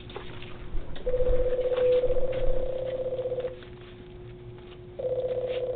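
Door intercom ringing out while waiting for an answer: a buzzing, pulsing ring about two and a half seconds long, then after a gap a second ring, over a steady low electrical hum.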